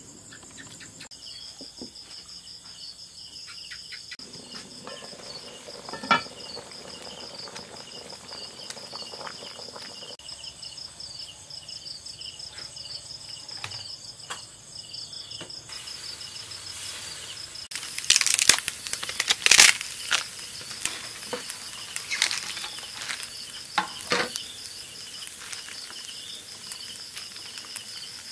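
Crickets chirping steadily in a fast pulsing trill in the background, with scattered kitchen handling noises and a loud run of sharp knocks and clatter about two-thirds of the way in.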